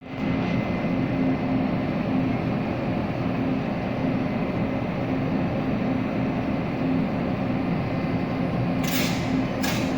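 Taiwan Railways E400-series electric locomotive running with a steady hum and a held low tone, as the train pulls out of the station. Two short hissing bursts come near the end.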